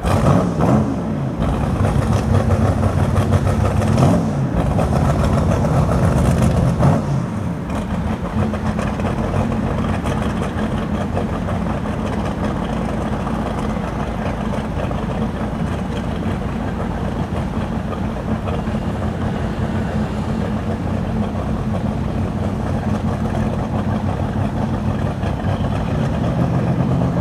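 Engine revved a few times, its pitch rising and falling, then settling into steady running from about eight seconds in.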